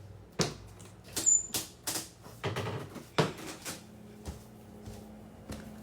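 Heavy footsteps on a floor: a string of irregular thuds and knocks, about two a second, that thin out after about four seconds, when a faint steady hum comes in.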